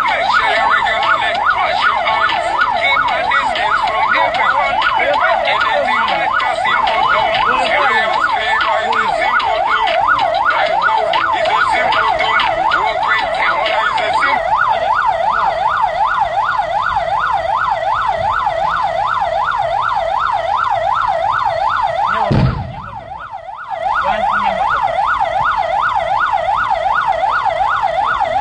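Vehicle siren in a fast yelp, rising and falling about three times a second. Near the end it is broken by a thump and drops out for about a second before resuming.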